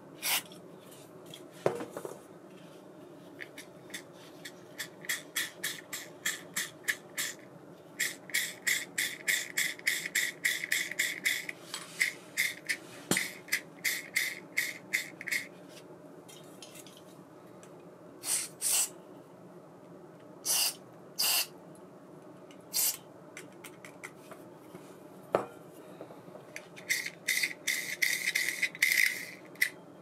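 Small metal parts of a round baitcasting reel clicking and rubbing as it is handled during disassembly. There are runs of light clicks, about three a second, and a few louder single clicks in between.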